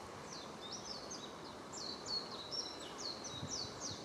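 A bird giving a quick run of high, downward-sliding notes, about a dozen in a row, over a faint steady outdoor hiss.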